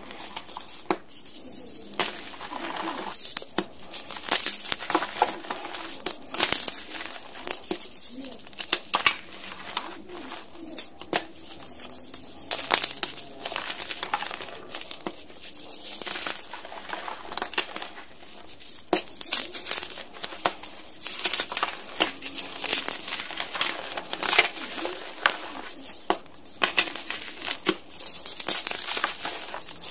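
Dyed gym chalk blocks crushed and crumbled by hand: a dense, irregular run of crisp crunches and crackles, coming in clusters with brief lulls between squeezes.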